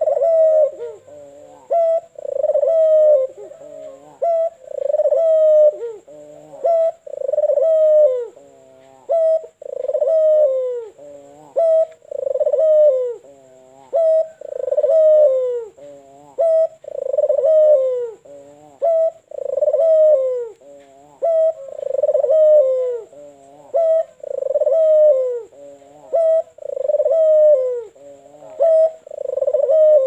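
White (albino) Barbary dove cooing over and over, one coo phrase about every second or two, each gliding down in pitch.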